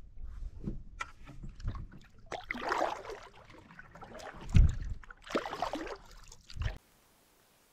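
Canoe being paddled: irregular swishes and sloshes of the paddle and of water against the hull, with a heavy low thump about halfway through. The sound cuts off suddenly near the end.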